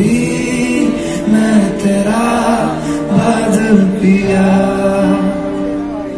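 A man singing a Bengali song live while accompanying himself on piano, heard from among the audience in a large concert venue.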